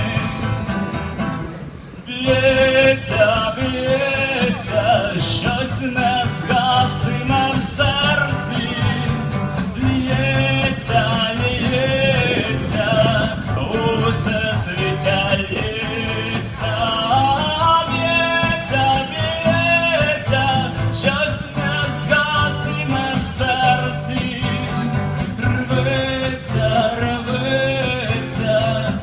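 A man singing to his own acoustic guitar, strummed, amplified through stage speakers. The song drops off briefly just before two seconds in, then goes on.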